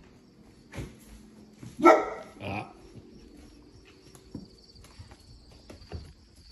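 Large black mastiff-type dog barking twice: one loud bark about two seconds in and a shorter, quieter one right after.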